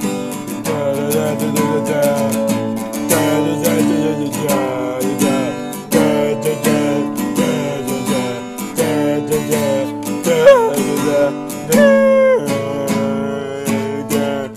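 Instrumental stretch of a song: guitar chords strummed steadily, with a melody that slides up and down in pitch over them.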